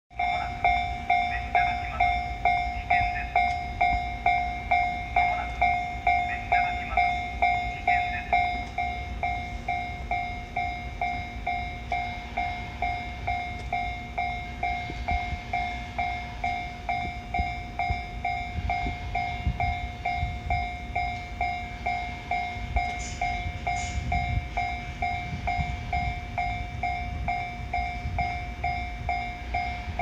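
Japanese railway crossing bell ringing its repeated electronic 'kan-kan' warning tone, about two strokes a second. It is louder for the first eight seconds or so, then softer. A low rumble swells in the second half.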